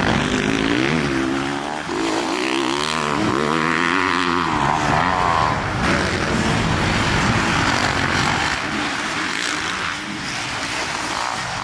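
Motocross dirt bike engine being ridden hard, revving up and down again and again as the rider works the throttle and gears around the track.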